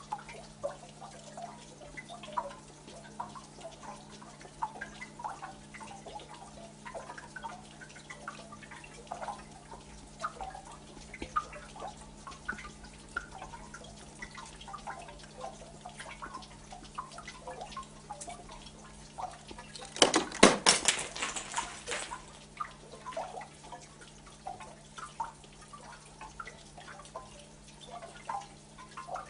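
Water dripping and trickling in many small, irregular plinks. About twenty seconds in, a loud scraping clatter lasts around two seconds.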